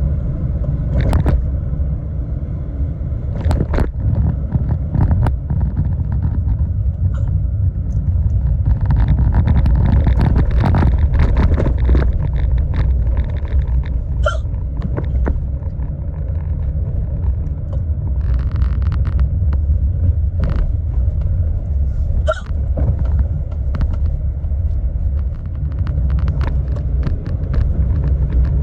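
A woman's deep hiccups, short sharp catches coming a few times, several seconds apart, over the steady low rumble of a car's cabin on the road.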